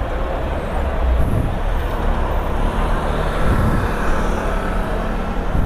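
Steady city street traffic noise: a continuous low vehicle rumble.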